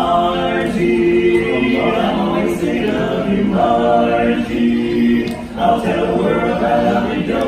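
Barbershop quartet of four men singing a cappella in close harmony, with a few sharp clicks among the singing.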